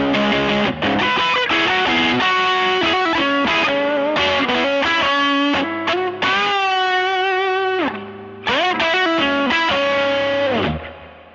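Fender Telecaster played through a JHS Bender fuzz pedal into a 1966 Fender Vibrolux Reverb tube amp, heard through the amp's microphones: a distorted lead line of single notes. About halfway there is a long held note with vibrato, then a slide down in pitch, and the last note cuts off near the end.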